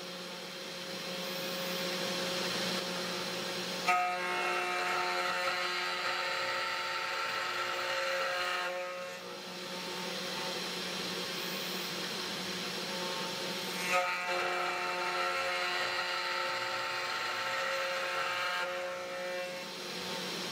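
3018 Pro Max desktop CNC router's spindle running with its end mill cutting acrylic plastic as it mills round stairs. The cutting gets louder in two stretches of about five seconds each, each starting with a short click.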